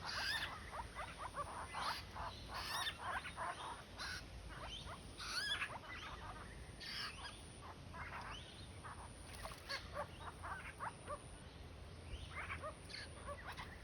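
A group of babblers chattering: many short, rapid, overlapping calls in an irregular string throughout.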